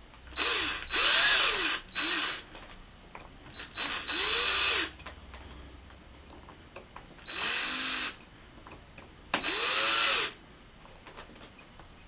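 Cordless drill driving small machine screws into an aluminium connector block, in about six short bursts of a second or less, the motor speeding up and winding down each time, with small clicks in between. The screws are being tightened alternately, corner to corner, to crush a silicone gasket into a waterproof seal.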